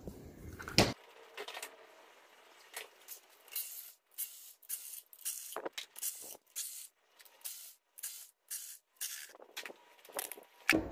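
Cordless ratchet spinning out valve cover bolts on a V8 in short bursts, roughly two a second. There is a sharp knock about a second in and another at the very end.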